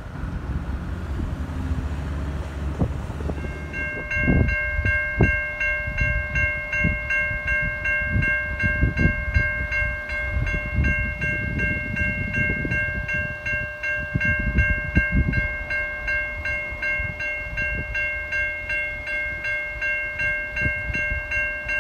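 A diesel locomotive's low rumble fades for the first few seconds. From about three and a half seconds in, railway level-crossing warning bells ring in a steady, evenly repeating pattern, over irregular low rumbles.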